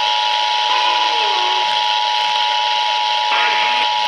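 Emergency Alert System attention signal: the two-tone alert (853 and 960 Hz sounding together), holding steady over a constant hiss of broadcast static.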